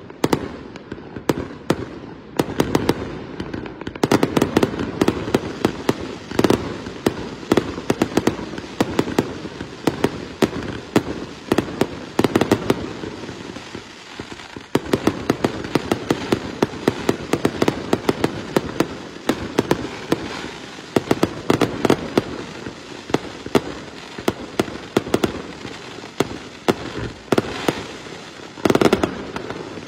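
Fireworks display: aerial shells bursting in rapid, overlapping bangs and crackles, several a second, easing off briefly around the middle and picking up again, with a loud cluster of bangs near the end.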